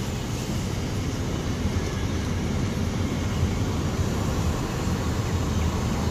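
Steady road and wind rumble of a moving car.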